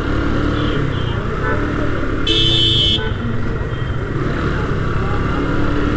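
Bajaj Pulsar 135LS motorcycle running steadily in city traffic, its engine under road and wind noise. A vehicle horn sounds once for under a second, about two seconds in.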